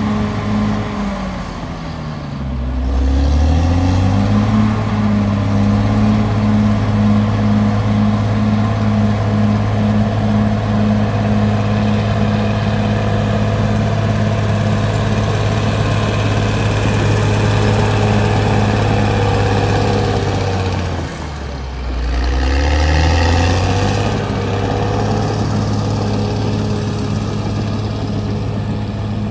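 Caterpillar D6R XL bulldozer's diesel engine running steadily. Its engine speed dips and then climbs back up twice, about two seconds in and again about twenty-one seconds in.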